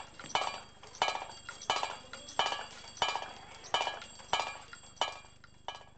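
Two small brass bells on a hand-built kinetic model, struck over and over by its mechanism, ringing about once every 0.7 seconds, each ring dying away before the next. The strikes stop near the end.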